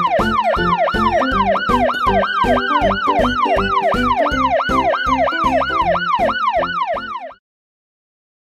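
Cartoon fire engine siren wailing in fast repeated sweeps, each jumping up and sliding down in pitch, about three a second, over a backing-music beat. It cuts off abruptly a little after seven seconds in.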